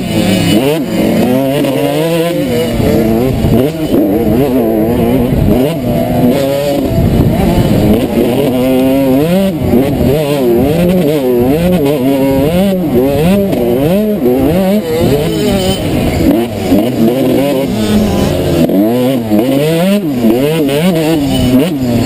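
Suzuki RM125 two-stroke single-cylinder motocross engine being ridden hard, its pitch climbing and falling over and over as the throttle is opened and closed through the gears.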